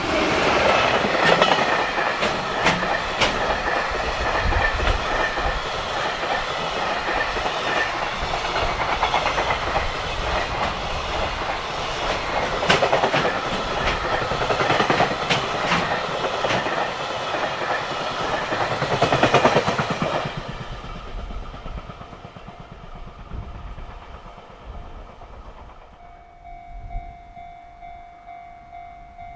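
JR Freight freight train passing at speed, its wheels clacking over the rail joints, loudest for about twenty seconds and then fading away. Near the end a quiet, steady high tone starts up.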